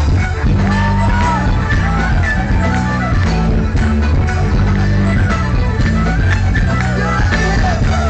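Folk-rock band playing live: electric guitar, bass and drums with a steady, repeating low bass line, and a melody line sliding up and down above it.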